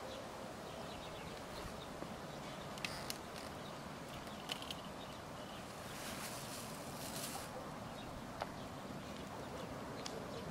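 Faint outdoor ambience with scattered light clicks and taps, and a brief soft hiss about six seconds in.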